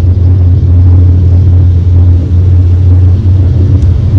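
Loud, steady low rumble of a vehicle in motion.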